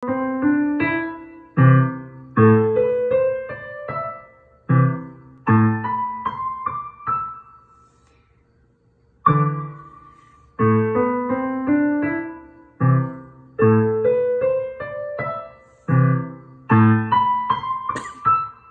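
A child playing a short, simple piano piece on a digital piano, the melody over bass notes in phrases of a few seconds. The playing stops about seven seconds in and starts again about nine seconds in.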